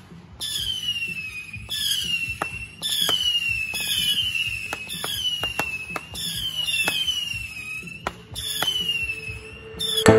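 Whistling fireworks: a rapid series of whistles, each falling in pitch over about a second, about one a second, with sharp pops and cracks between them.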